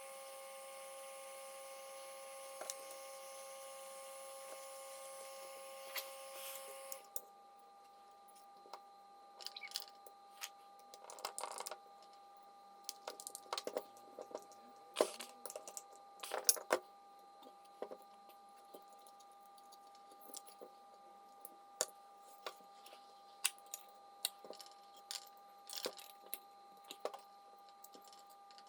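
A steady electrical hum with several held tones cuts off about seven seconds in. After that come scattered small clicks and light knocks of hard objects being handled, over a faint steady tone.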